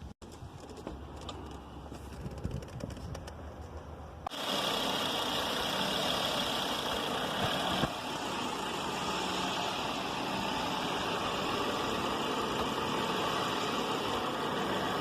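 A car engine running steadily. It cuts in abruptly about four seconds in, after a quieter stretch of low hum.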